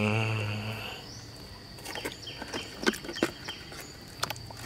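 Insects trilling steadily on one high note. A short low hum sounds in the first second, and a few light wet clicks and splashes follow as a toy vehicle is pushed through shallow muddy water.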